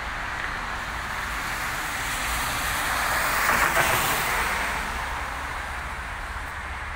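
A vehicle passing at speed on a rain-wet road: tyre hiss and spray swell to a peak about halfway through, then fade, over a steady low traffic rumble.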